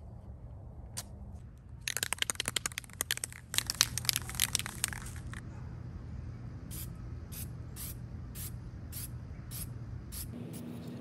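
Tape being pulled off the roll in a loud crackling run, then a series of light, evenly spaced ticks as it is worked on.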